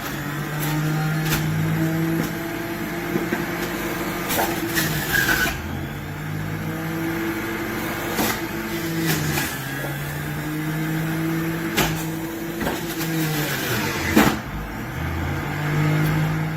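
Electric juicer motor humming in short runs that stop and start again several times, with sharp cracks as food is crushed in it.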